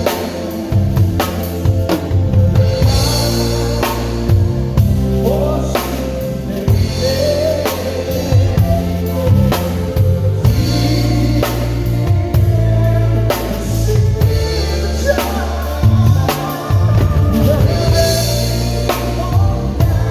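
Drum kit played along to a song with a sung vocal and bass line, kick drum and snare or rim hits keeping a steady beat over the track.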